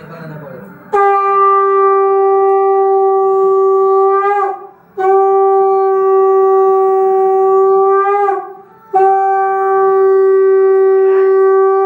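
Conch shell (shankha) blown in three long, steady blasts, each dipping in pitch as the breath runs out. It is the auspicious call sounded during the Hindu forehead-marking ritual.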